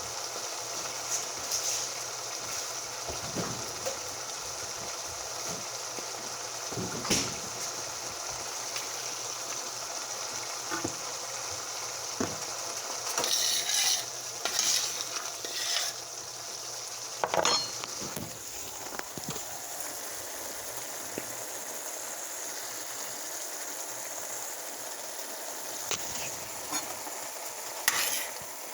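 Food sizzling steadily in a frying pan, with occasional scrapes and knocks of a utensil stirring it.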